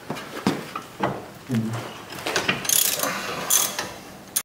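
Hand ratchet clicking as the 18 mm nut on a tie rod end is turned loose: a few single clicks, then quick runs of rasping clicks in the second half, cut off abruptly near the end.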